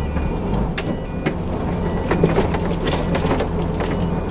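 Renault Magnum lorry's diesel engine running steadily at low speed, heard from inside the cab, with a few sharp clicks over the drone.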